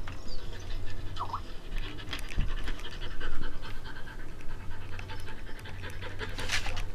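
Dogs panting in quick, repeated breaths, played back through computer speakers.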